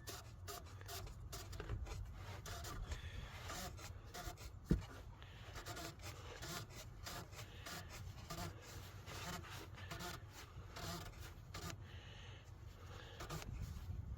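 Faint rubbing and small clicks of the oil filter housing lid on a 3.6L Pentastar V6 being threaded back on by hand, with one sharp knock a little under five seconds in.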